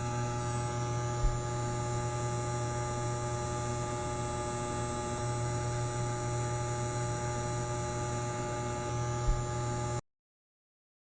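A steady machine hum: a low drone with several constant tones above it, and two brief low knocks, about a second in and near the end. It cuts off abruptly to silence about ten seconds in.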